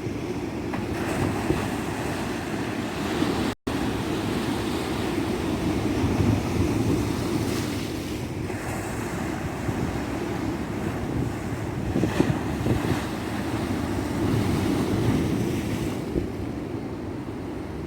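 Surf breaking on a tropical beach: a continuous rush of waves that swells and ebbs every few seconds, with wind buffeting the microphone. The audio cuts out for an instant about three and a half seconds in.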